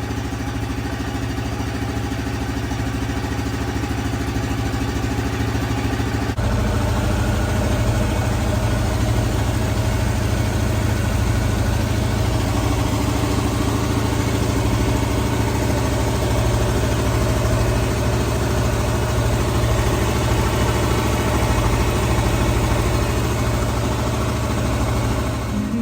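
Yamaha Kodiak 700 ATV's single-cylinder engine idling steadily. About six seconds in the sound shifts and becomes slightly louder.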